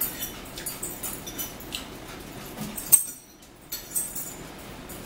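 Eating at a table: a metal fork clicking and scraping on a plate, with chewing and small mouth sounds, and one sharper click about three seconds in.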